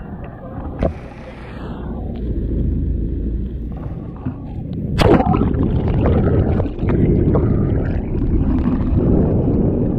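Fishing boat's engine rumbling with water noise around the hull, a sharp knock about a second in and a louder one about five seconds in.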